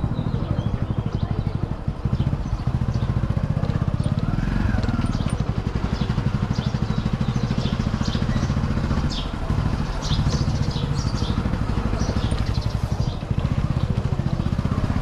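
A vehicle engine running steadily, a low, evenly pulsing drone, with light clicks and rattles on top.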